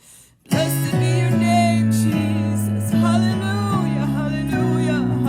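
Church worship music starting abruptly about half a second in: held low notes from the band under a singing voice.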